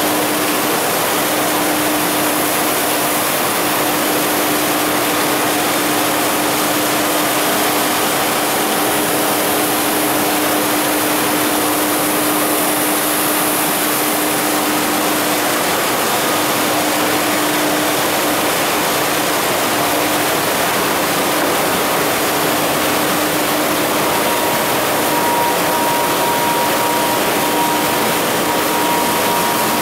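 Steady industrial machinery noise: an even rushing din with a constant hum, and a second, higher steady tone joining about 24 seconds in.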